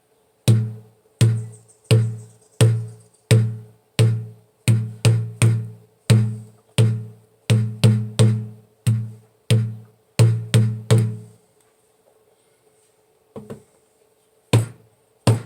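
A large water bottle struck like a drum with a padded pool-noodle mallet, giving low, deep thumps that die away quickly. The strikes come in a steady beat of about one and a half a second, with some quick double strokes. They stop about eleven seconds in, and a few more come near the end.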